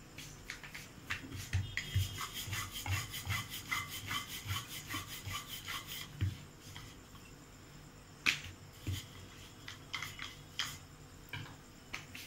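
Wooden rolling pin rolling out thin maida dough on a round floured board: a run of rhythmic rolling strokes, about two to three a second, easing off after about six seconds into a few scattered knocks.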